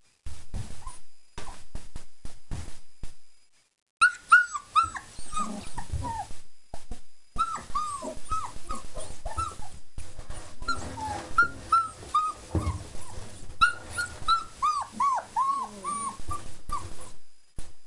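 Several four-week-old German Shepherd puppies whining and yipping: many short, high cries that fall in pitch, overlapping in quick succession from about four seconds in. Before that come only scattered short clicks.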